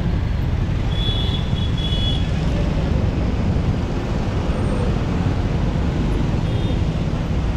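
Dense street traffic heard from a moving two-wheeler: a steady, loud low rumble of engines and road noise from motorbikes, auto-rickshaws and a truck alongside. A short high-pitched tone sounds about a second in, and a fainter one near the end.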